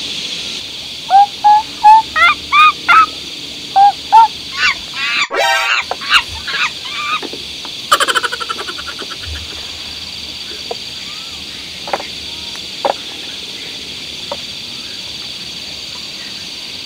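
Loud series of short honking animal calls, each note rising and falling in pitch, several a second for a few seconds, then a more tangled stretch and a fast rattling burst about eight seconds in. A steady high insect drone runs underneath.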